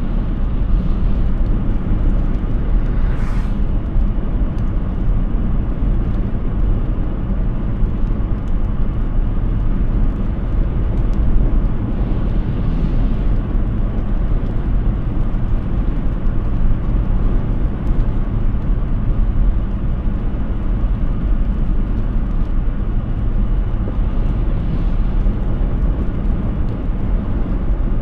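Steady road and wind noise from a Hyundai Ioniq 6 electric car driving along, with no engine sound, and a few brief swells of hiss.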